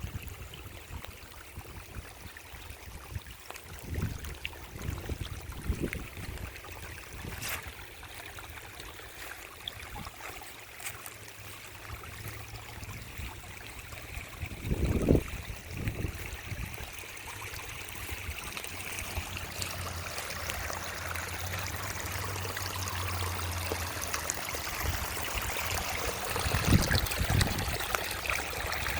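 Creek water trickling and splashing over small hand-built waterfalls, a steady rush that grows somewhat louder in the last third, with a few brief low thumps.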